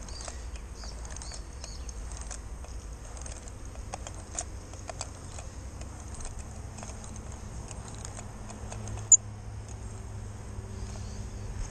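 Light, irregular clicks and rustling from a slingshot fishing rig's reel and line as the line is wound back in, with one sharp click about nine seconds in.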